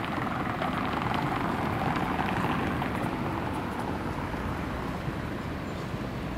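Steady urban street and traffic noise, a continuous rushing hiss with a few faint ticks.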